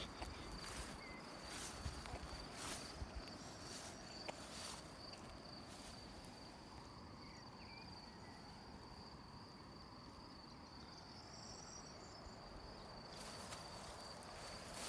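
Cricket trilling steadily at a single high pitch. Short rustling sounds come in the first few seconds and again near the end.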